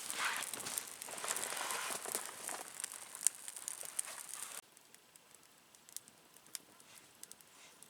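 Crinkling and rustling of something being handled, with many small clicks, for about four and a half seconds. It then cuts off abruptly to a quiet background with a few faint scattered ticks.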